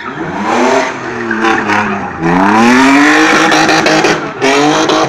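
Rally car engine revving hard as the car takes a roundabout, the revs rising and falling several times with throttle lifts and gear changes, the longest pull about two seconds in.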